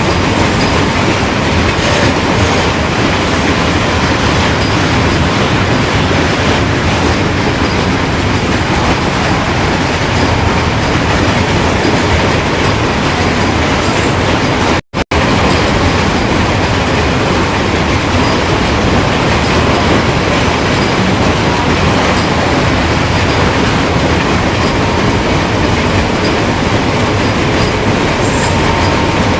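Freight train cars rolling past: a steady rumble and clatter of steel wheels on the rails, with a faint steady squeal. The sound cuts out for an instant about halfway through.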